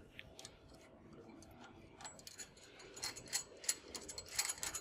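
Faint, irregular metallic clicking and ticking from the spring tensioner hardware of a Flexco Y-Type secondary belt cleaner being handled, the clicks coming thicker and louder about three seconds in.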